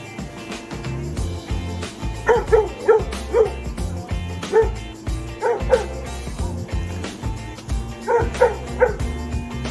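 A Springador (Labrador–springer spaniel cross) barking in short, high yips, in quick runs of three or four with a single bark between them, over background music.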